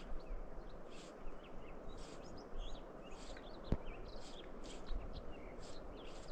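Small birds chirping and calling again and again, about once a second, over a steady rush of flowing creek water. A single sharp click sounds a little past the middle.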